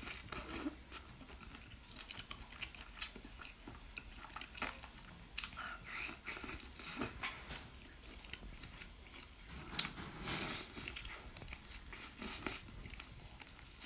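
Close-up chewing of peeled shrimp coated in chili oil: irregular bites and wet mouth clicks.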